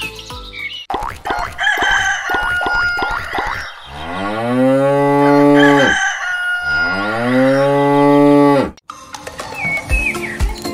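A cow mooing twice, two long loud calls that each rise and then fall away. Before the moos, hens cluck in quick strokes.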